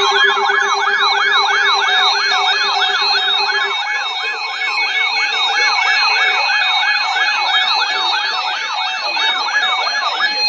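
Electronic emergency-alert attention signal: a loud siren-like tone sweeping rapidly up and down about two and a half times a second, marking the start of a broadcast weather alert. A steady lower tone sounds under it for the first few seconds and then stops.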